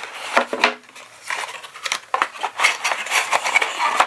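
Cardboard packaging being handled: the tablet box and its inner tray sliding, scraping and knocking, with irregular clicks and rustles throughout.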